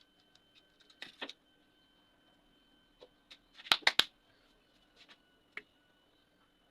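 Clicks and rattles of small parts or tools being handled, loudest in a quick run of three sharp clicks about four seconds in, over a faint steady hum.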